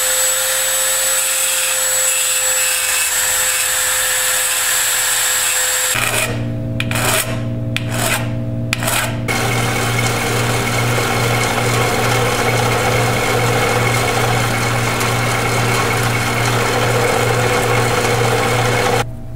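Small handheld rotary grinder running with a steady high whine as it grinds down the peened-over pins on a heater control. After a few short breaks a drill press runs with a low hum, drilling pilot holes into the control's metal base ready for tapping.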